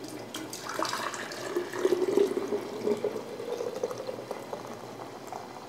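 Hot elderberry juice poured from a glass bowl through a stainless steel funnel into a glass mason jar; the pouring sound rises slowly in pitch as the jar fills.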